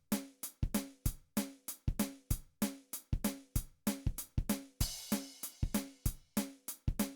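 Drum-kit beat, evenly spaced kick and snare strokes at about three a second, with a cymbal crash about five seconds in.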